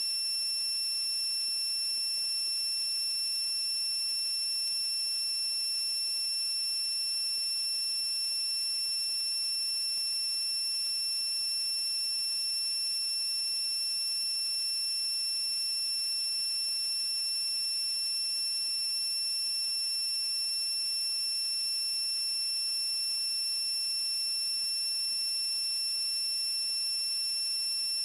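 A steady, unbroken high-pitched electronic tone, several pitches sounding together, over an even hiss.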